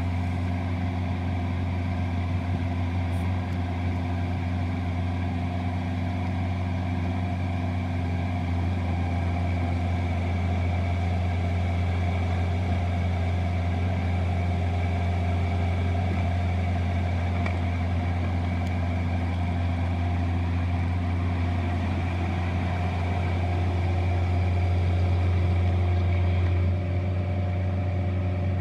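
Terex TC29 mini excavator's diesel engine running steadily under load while the machine works its boom and bucket and then drives off on its tracks. The engine gets a little louder a few seconds before the end, then drops back briefly.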